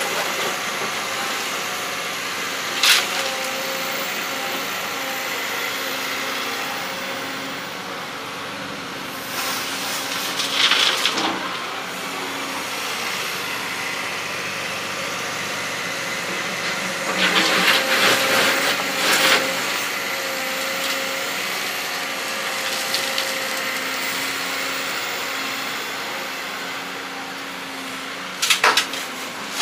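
Excavator engine running steadily, louder for a couple of seconds about ten seconds in and again around eighteen seconds. Sharp knocks come a few seconds in and near the end.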